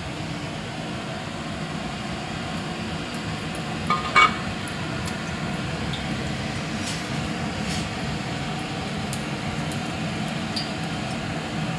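A single sharp glass clink about four seconds in, from the glass cooking-oil bottle just used to pour oil into an aluminium kadai, over a steady low kitchen hum.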